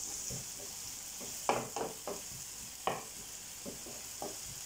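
Chopped onions sizzling steadily in hot oil in a frying pan as they are sautéed and stirred with a spatula. The spatula scrapes across the pan several times, in a cluster about one and a half seconds in and again near three seconds.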